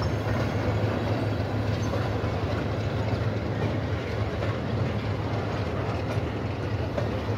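Freight train of flat wagons and a brake van rolling past on the track, a steady rumble.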